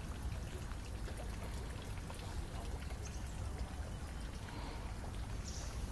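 Steady outdoor background noise: a constant low rumble with a few faint small clicks and ticks.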